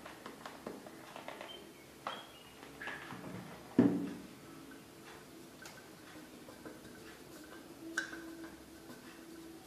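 Stainless steel plate being handled on a kitchen counter while cornflour is dusted over it and spread by hand: light taps and rubbing, with one sharp knock of the metal plate about four seconds in that rings briefly, and another small ringing click near the end.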